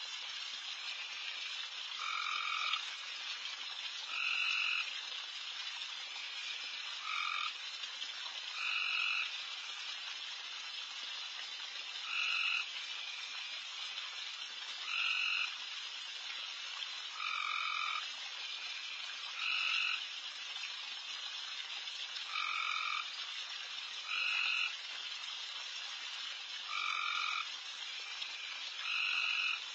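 Loud frog chorus: a dense, steady din of many frogs calling, with a louder individual call about every two to three seconds.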